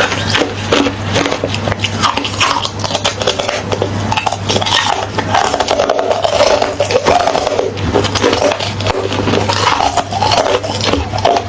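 Close-miked crunching and chewing of hollow, refrozen ice, a dense unbroken run of crisp cracks and scrapes, with a steady low hum underneath.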